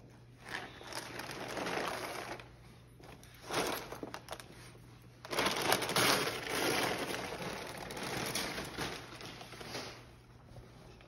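Gift wrapping paper crinkling and crumpling as a dog tears into a wrapped present, in a few bursts, the longest and loudest in the second half.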